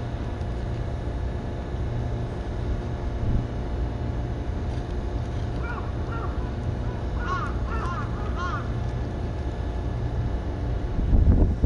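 A bird gives a run of short harsh calls in two clusters about six and eight seconds in, over a steady low rumble, with a few louder low knocks near the end.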